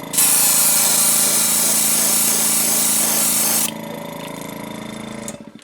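Airbrush spraying paint in one steady hiss for about three and a half seconds, over the hum of a small air compressor, which keeps running after the spray stops and cuts out near the end.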